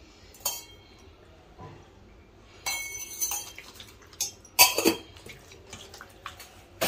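Hand mixing masala-coated fish pieces in a stainless steel bowl: quiet stretches broken by metallic clinks and knocks against steel. There is a short clinking scrape about three seconds in, and the loudest is a double knock a little before five seconds in.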